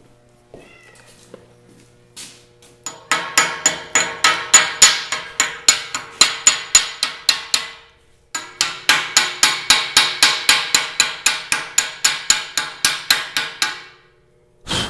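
Chipping hammer rapping on a fresh weld on steel drill pipe, knocking off the welding slag: two long runs of quick ringing metal strikes, about five a second, with a short pause between them, then one loud knock just before the end.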